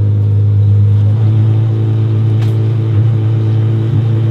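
Apollo IE's 6.3-litre naturally aspirated V12 idling steadily, a deep even tone with no revs.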